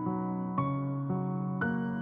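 Soft, slow background music on piano or electric piano, single notes struck about twice a second over a held low tone.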